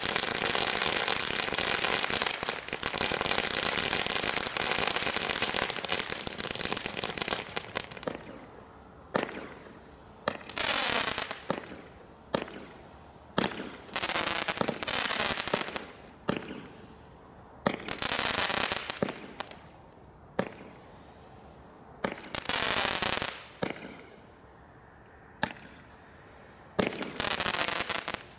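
Consumer fireworks: dense, continuous crackling for the first eight seconds or so. Then a Roman candle fires single shots every one to two seconds, each a sharp pop followed by about a second of hissing as the star climbs.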